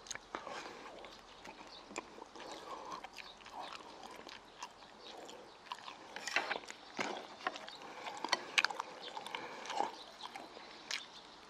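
Close-miked chewing of stir-fried meat and peppers: irregular wet mouth smacks and clicks, with a few louder ones about six and eight seconds in.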